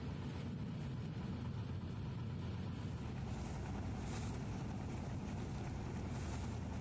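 Motorboat engine running steadily, heard from on board as the boat moves through the water, with two brief hissing surges, about four seconds in and near the end.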